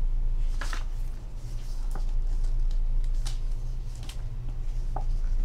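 Pages of a glossy photo book being turned by hand: a handful of short paper swishes and soft taps, the clearest about a second in, over a steady low hum.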